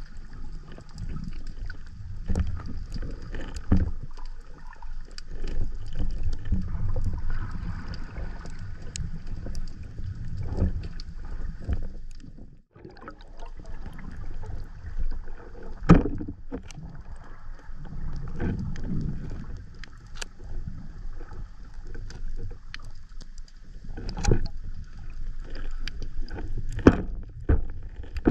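Underwater sound picked up by a camera mounted on a speargun: uneven low water noise with scattered clicks and knocks, the sharpest about sixteen seconds in.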